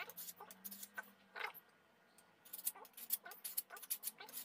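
Hand file scraping in short, quick strokes along the edge of an unsharpened Tramontina steel machete blade, with a pause of about a second near the middle. The filing raises a basic edge on the factory-blunt blade before it goes to the sharpening stone.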